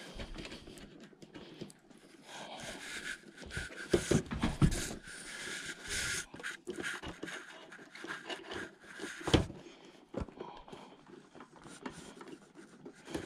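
Scraping, rustling and a few sharp clicks as the connector of a thick 400-type coax cable is worked onto the rear socket of an SWR/wattmeter.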